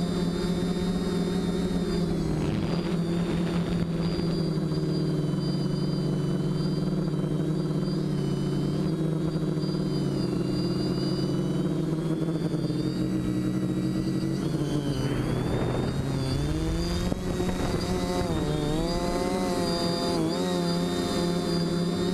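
Close-up sound of a quadcopter's electric motors and propellers in flight, a steady multi-tone buzz whose pitch sinks and rises with throttle, dipping sharply about two-thirds of the way through and wavering near the end.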